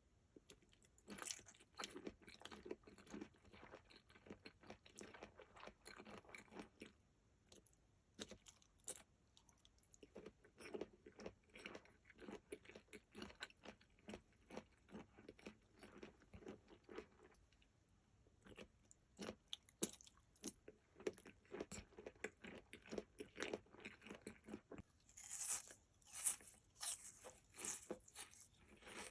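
Close-miked chewing of jelly candies shaped like Lego bricks, with a crisp, crackly crunch. The crunching comes in runs of rapid bites separated by brief pauses, and is sharpest near the end.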